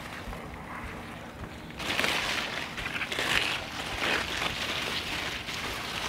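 Rustling of garden foliage and damp soil as someone digs by hand for garlic bulbs among the plants, in irregular bursts that grow louder about two seconds in.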